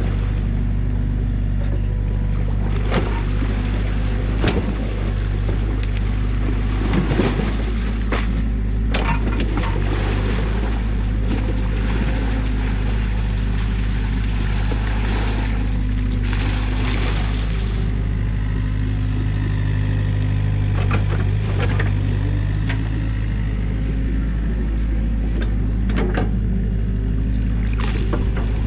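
Mini excavator's diesel engine running steadily, with splashes, sloshing and clunks as the bucket digs through water, mud and sticks. A louder rushing hiss comes a little past the middle.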